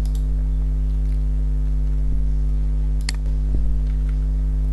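Steady electrical mains hum in the recording, with a brief click about three seconds in.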